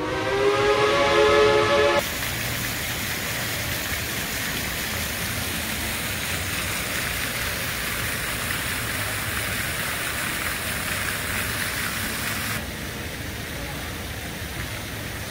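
A train whistle sounds for about two seconds, rising slightly in pitch. It gives way to the steady rushing hiss of a fountain spraying into a pond. Near the end this cuts to a quieter, steady background noise.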